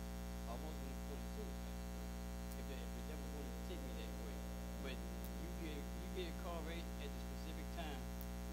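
Steady electrical mains hum with a stack of overtones, under faint, quiet speech.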